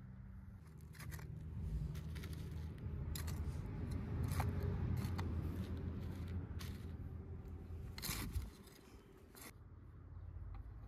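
Irregular sharp clicks and scraping from hands-on food preparation, such as cutting, over a steady low rumble. The handling is busiest in the middle and quietens after about eight seconds, with one last click a second later.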